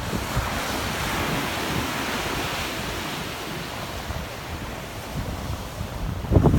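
Sea waves washing onto rocks and sand: a broad hiss that swells in the first few seconds and slowly eases off. Wind buffets the microphone in low rumbling gusts, loudest just before the end.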